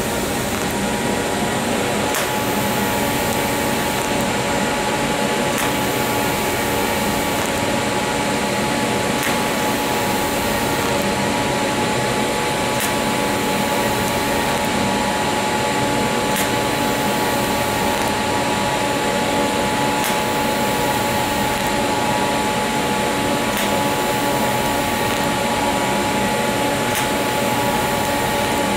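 TIG welding arc on stainless steel, running continuously: a steady hiss with a steady hum and tone underneath.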